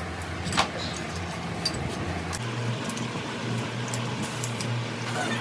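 An engine running steadily, its pitch stepping up about two and a half seconds in, with a few light clicks.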